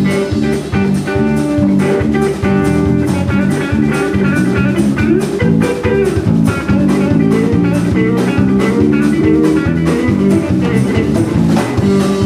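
Live country band playing an instrumental break: electric guitar leading over bass and a drum kit keeping a steady beat.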